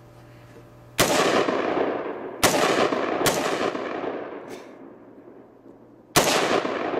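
AR-15 rifle fired four times at uneven intervals, a second or more apart, each shot trailing off in a long rolling echo.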